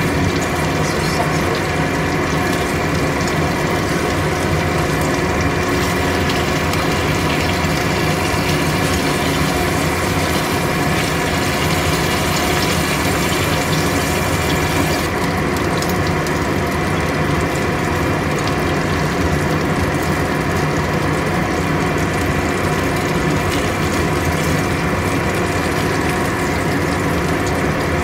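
Induction cooktop running with a steady hum, under fish-stuffed green chillies frying gently in a little oil; the high hiss thins about halfway through.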